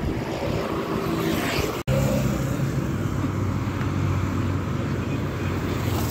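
Engine running steadily under wind and road noise while riding along a busy road with motorcycles and cars passing. The sound cuts out for an instant about two seconds in.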